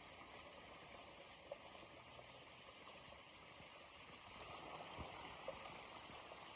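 Faint, steady rush of a flowing stream, with a few soft knocks.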